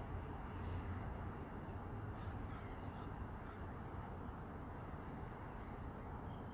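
Faint, short animal calls over a steady outdoor background of hiss and low hum.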